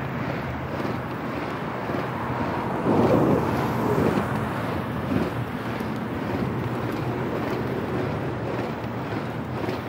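Wind rushing over the microphone of a camera riding along on a bicycle, mixed with road traffic noise, with a louder rush about three seconds in.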